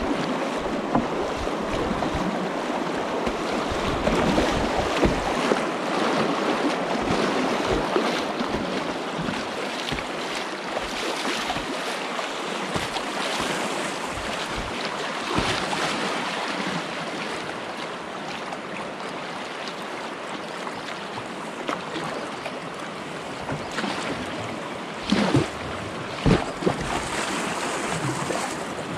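Fast creek water rushing and splashing around a kayak running a stretch of riffles, with paddle strokes in the water and wind buffeting the microphone. A couple of heavier thumps come near the end.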